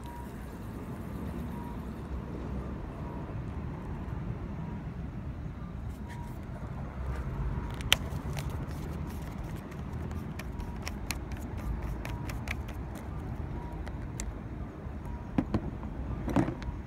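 Steady low outdoor rumble. A sharp click comes about eight seconds in, and a few clicks and rattles near the end as a fishing rod is handled.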